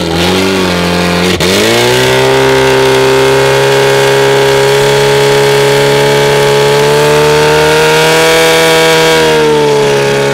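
Portable fire pump's engine running at full throttle while it pumps water to the nozzles. It jumps up in revs about a second and a half in, holds a high steady pitch, then eases slightly near the end.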